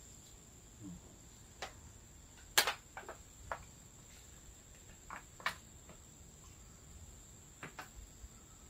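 A steady high-pitched insect drone runs under a scatter of sharp clicks and crackles from a plastic water bottle being handled. The loudest click comes about two and a half seconds in.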